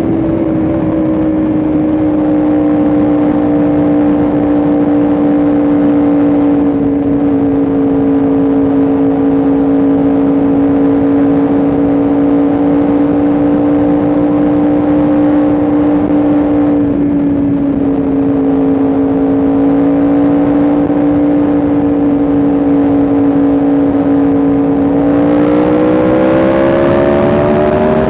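Yamaha R1M's crossplane inline-four engine running at steady cruising revs under way, with two brief dips in the note, then revs climbing steadily near the end as the bike accelerates.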